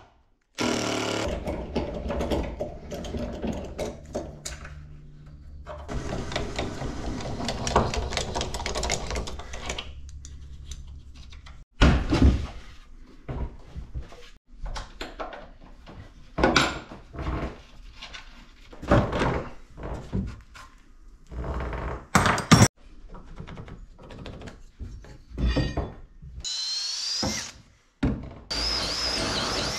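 Cordless drill running in two long bursts of several seconds, followed by a stretch of sharp wooden knocks as the boards are handled. Near the end comes the drill boring through a timber board with a large wood bit, its pitch sliding as the bit bites.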